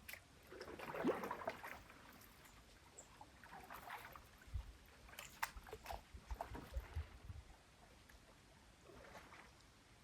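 Canoe paddle strokes in water: three soft splashing swishes a few seconds apart, with a run of low thumps and sharp clicks between the second and third stroke.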